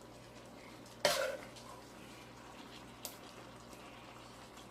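A serving utensil knocks and scrapes once against cookware about a second in, with a lighter click about three seconds in, while the meat is served onto the noodles.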